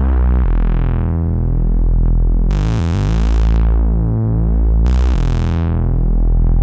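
Electronic synthesizer music with a deep bass. Twice, about two and a half seconds in and again near five seconds, a sudden hiss sweeps in and fades away.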